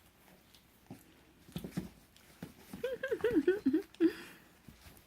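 Puppies play-fighting: a few scuffling knocks, then, about three seconds in, around a second of high wavering puppy vocalizing that rises and falls quickly, with a short final note just after.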